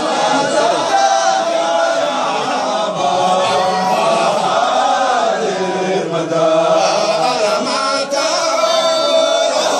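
A group of men chanting a Sufi dhikr together, a lead voice singing over the others in a continuous devotional chant.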